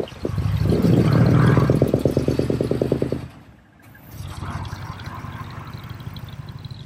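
Large diesel truck engine running as the truck drives slowly past close by, its exhaust pulsing in a fast, even beat over a low hum. About three seconds in it drops away briefly, then comes back as a quieter, steady engine hum.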